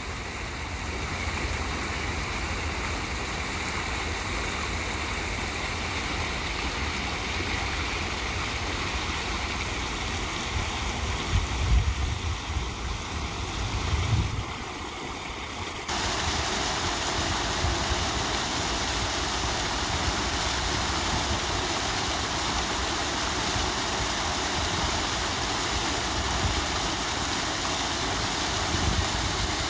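Water from a park fountain spilling over low concrete weirs into the pool, a steady rushing splash, with a few low rumbling thumps a little before halfway. Just past halfway it jumps suddenly to a louder, brighter rush as a larger cascade comes close.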